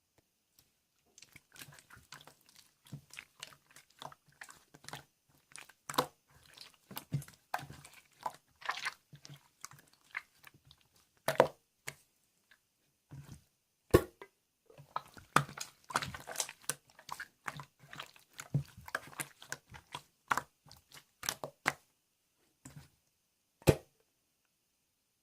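Purple marbled slime being squished and pressed by hand, making irregular wet clicks, crackles and pops in bunches, with a couple of short pauses.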